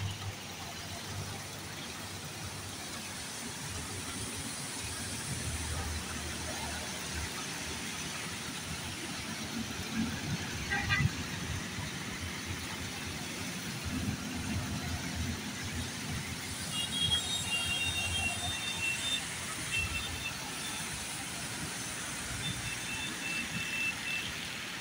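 Traffic on a wet road: motorcycles and other vehicles passing with engine sound and tyre hiss over a steady background hiss. In the second half a high-pitched beeping tone sounds on and off.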